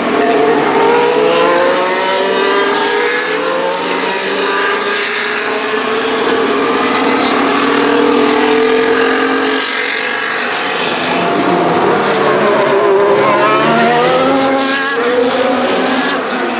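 2025 Formula 1 cars' turbocharged V6 hybrid engines running trackside, several cars going by in succession. The engine note falls in pitch as they pass, then dips and climbs again near the end.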